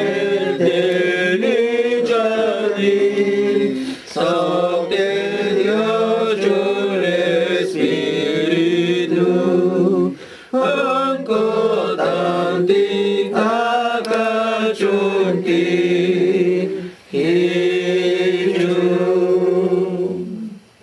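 Chanted prayer: a voice intoning long, wavering lines on a nearly steady pitch, pausing briefly for breath about 4, 10 and 17 seconds in.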